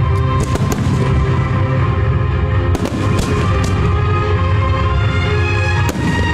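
Fireworks going off in a loud, continuous low rumble of bursts, with sharp crackles about half a second in, around three seconds in, and near the end, over music with sustained tones.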